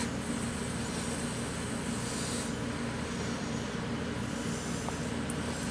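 Steady low hum with a hiss over it; the highest part of the hiss thins out a little past two seconds in.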